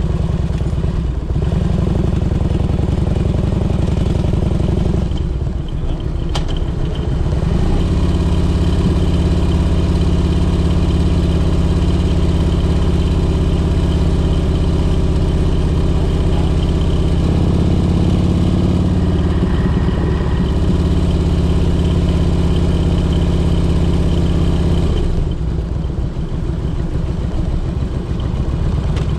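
Steady low motor-like drone with a constant hum, changing pitch about seven seconds in and easing near the end.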